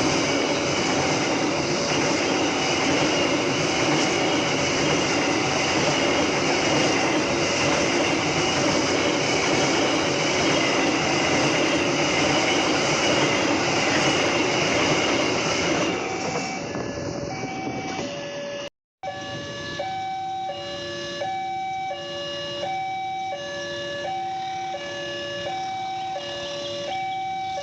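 A train running past, loud rail and engine noise for about the first sixteen seconds, over a level crossing's electronic warning alarm. After a brief cut the alarm carries on alone, switching back and forth between two tones.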